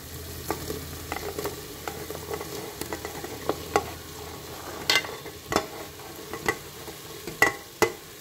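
Chopped vegetables dropped into hot fried masala in a pressure cooker, sizzling, with a series of sharp clicks and knocks as the pieces and the metal plate hit the pot, the loudest two near the end.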